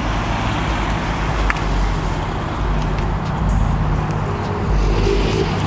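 Ford Fiesta ST's turbocharged four-cylinder engine running as the car pulls slowly past and away: a steady low rumble.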